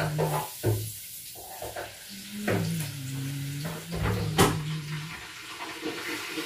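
Kitchen handling noises: a few sharp clicks and knocks of dishes and utensils over a steady hiss, with a low tone that comes and goes.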